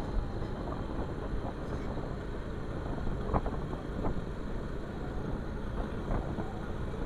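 A Bajaj Pulsar 220F motorcycle being ridden: its engine running steadily under wind noise on the microphone, with a few faint ticks around the middle.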